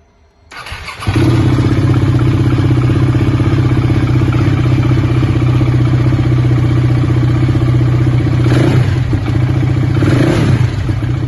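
Cold start of a 690 motorcycle engine. The starter spins for about half a second and the engine catches at once, with no starting trouble, then idles steadily. Near the end it is revved briefly two or three times.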